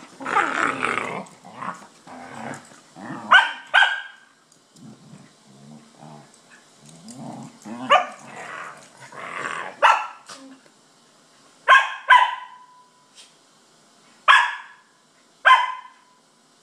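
Dogs barking and growling in rough play: a string of short, sharp barks, with lower growling between them.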